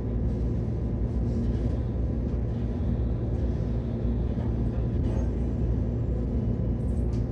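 Steady low hum inside a Keihan 10000 series electric train car standing at the platform before departure, with a faint steady whine from its onboard equipment.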